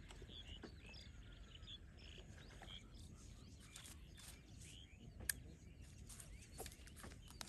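Faint outdoor quiet with small birds chirping, short rising calls repeated often and thickest in the first few seconds. About five seconds in comes a single sharp click, the loudest sound.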